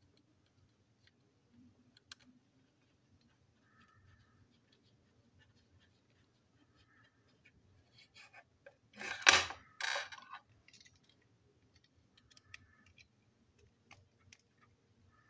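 Plastic toy-train motor chassis and small screwdriver being handled: scattered light clicks, with a loud clatter of knocks about nine seconds in.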